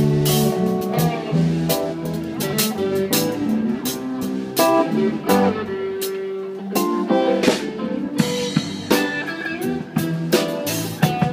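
Live band music: guitar playing over a drum kit and keyboards, with single notes changing quickly and steady drum and cymbal hits.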